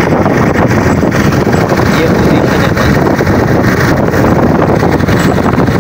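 Strong wind buffeting the microphone aboard a fishing boat under way on rough sea, a loud, steady rush with the boat's running noise underneath.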